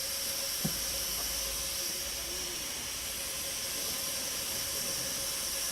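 Steady hiss of steam from a live steam miniature locomotive, with one sharp click under a second in.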